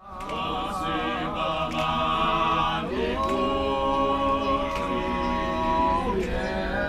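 A group of voices singing a cappella in harmony, holding long chords with vibrato; the chord changes about three seconds in and again near the end.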